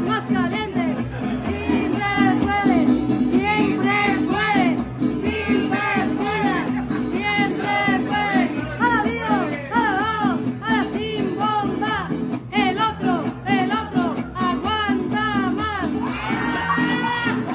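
Live mariachi music: a guitar strummed in a steady rhythm, with a melody line over it.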